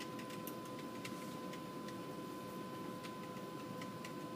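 Computer keyboard being typed on: irregular quick key clicks, over a steady electrical hum with a faint high tone.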